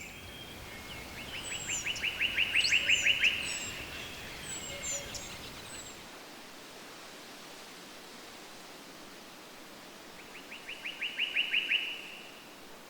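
Songbirds calling: one bird sings a quick trill of evenly repeated notes twice, the second trill coming about eight seconds after the first, while other birds give short high chirps early on. A steady hiss lies underneath.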